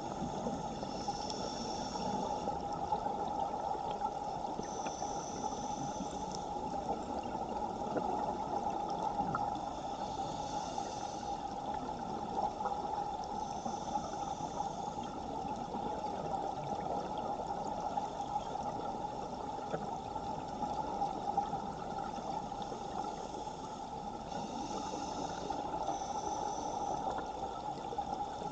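Underwater ambience heard through a camera housing: a steady rushing hiss of water in a strong current, with faint high whines that come and go every few seconds.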